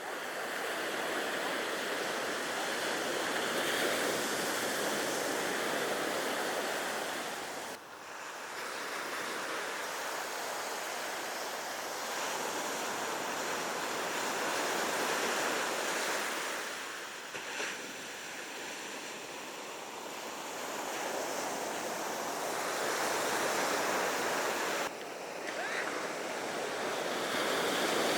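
Ocean surf breaking and washing up the beach, swelling and easing every few seconds.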